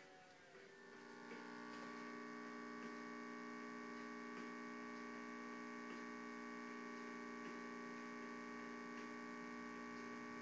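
Steady electrical hum made of several fixed tones, coming through a CRT television's speaker between lesson segments; it sets in about a second in and holds unchanged, with a few faint ticks.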